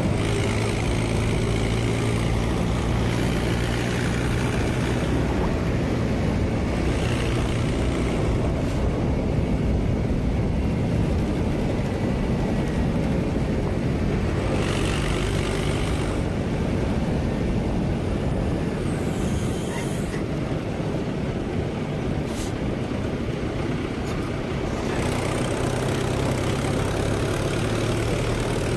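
Tractor diesel engine running steadily under way with a low, even hum, heard close up from the driver's seat.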